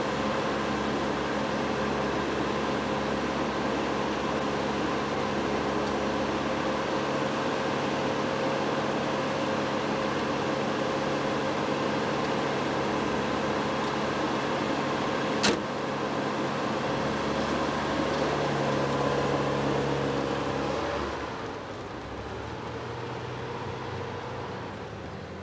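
MG Midget convertible's engine idling steadily, with a door shutting in one sharp knock about halfway through. Near the end the engine sound drops away as the car pulls off.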